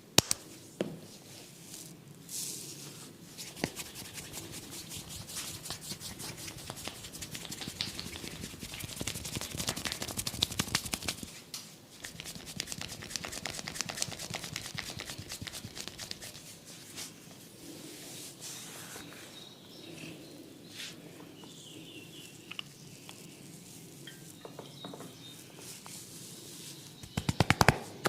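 Close-miked head massage: dense, rapid crackling and scratching on hair and scalp, thinning out to scattered clicks, then a quick run of loud tapping strokes near the end.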